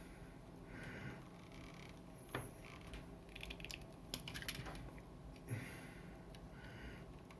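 Faint handling noises of electrical wire and connectors: scattered small clicks and taps with soft rustling, the sharpest clicks about two and a half seconds in and again about five and a half seconds in.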